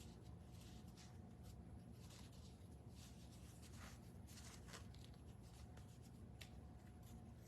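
Near silence: room tone with a steady low hum and faint rustling and light clicks of handling.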